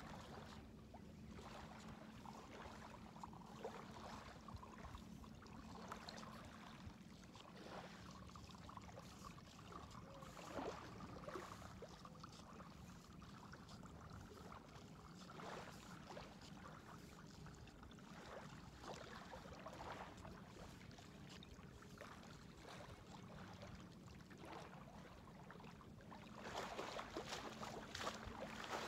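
Faint outdoor ambience with a low steady hum. Near the end come louder, crunching footsteps on the pebbly shore.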